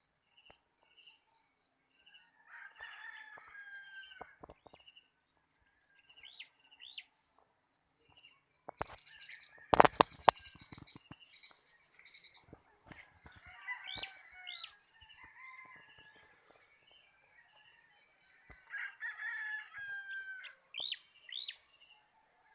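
Roosters crowing three times, each crow about two seconds long, over a steady pulsing chirp of insects. A short cluster of loud knocks about ten seconds in is the loudest sound.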